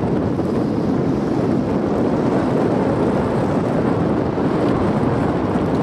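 Wind buffeting the camera microphone on open lake ice: a loud, steady low rumbling rush.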